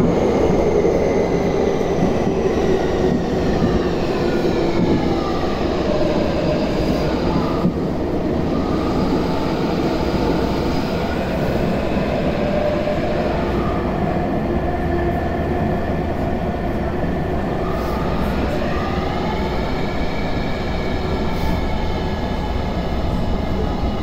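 Tokyu 5050 series underground train (formation 5177F) running in a tunnel: a dense rumble of wheels and motors under the high whine of its Hitachi IGBT-VVVF traction inverter, several tones that glide down in pitch and later sweep up again. This is the unusual motor sound that sets this unit apart from other 5050 series trains.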